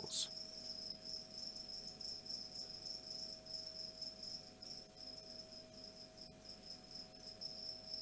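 Mediterranean field crickets chirping: a steady, high, finely pulsed trill.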